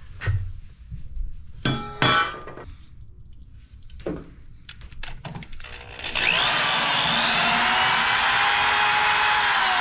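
A few clicks and rattles of handling the drill and bits, then about six seconds in an electric drill starts and runs steadily with a high motor whine that sinks slightly as it goes. The bit is grinding on a hard broken bolt without biting into it.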